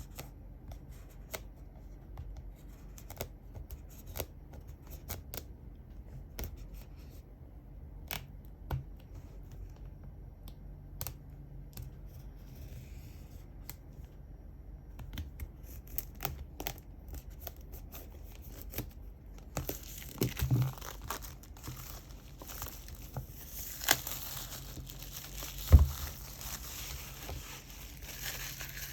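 Packaging being handled and opened: scattered sharp clicks and taps, then, about two-thirds of the way through, plastic wrap or paper tearing and crinkling, with one loud knock near the end.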